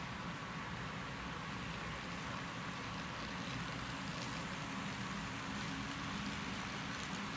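HO scale model freight train running on its track: a steady hum and rolling noise from the locomotives and wheels, with a few faint clicks.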